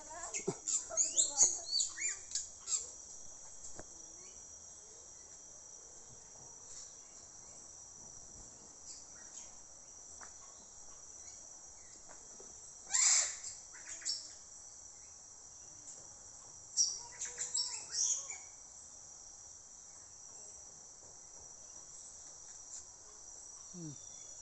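Insects droning steadily at a high pitch, with birds chirping and calling on and off: a flurry of calls at the start, a loud call about halfway through, and another cluster a few seconds later.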